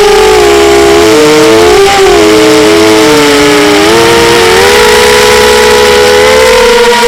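Two model aircraft engines running together in flight at full throttle, their notes close in pitch. The notes drift apart, cross about two seconds in, and come back together near the end.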